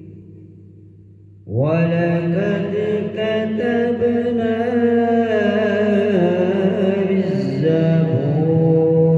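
A man's voice reciting the Quran in the melodic tilawat style through a microphone: the previous phrase fades away for about a second and a half, then a long drawn-out phrase begins, its held notes stepping up and down in pitch.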